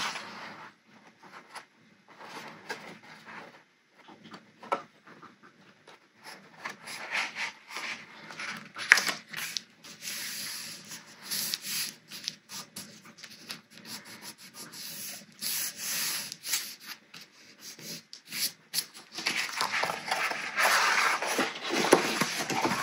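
Hands handling cardstock: paper rubbing and sliding against paper and the tabletop as glued pieces are pressed flat, with irregular scratchy rustles and small taps. The rubbing is denser and louder near the end.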